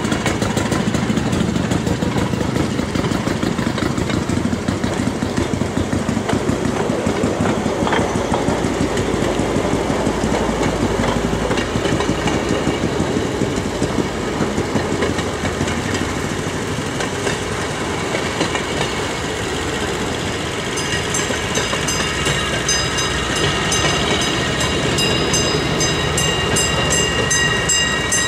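A procession of railway motor cars and a hi-rail pickup truck running along the track: a steady, loud mix of small engines and steel wheels on the rails. In the last several seconds, high ringing tones join in.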